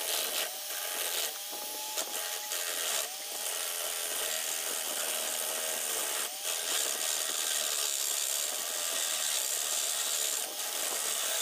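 Electric drill running, spinning a wooden disc in its chuck while a chisel scrapes it, with a steady gritty scraping of wood; the motor's pitch rises and settles again several times as the trigger is worked.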